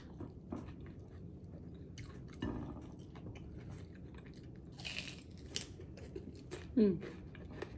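A person chewing and eating chicken adobo close to the microphone: scattered small clicks and wet mouth noises, a short breathy sound about five seconds in, and a brief falling vocal "mm" near the end.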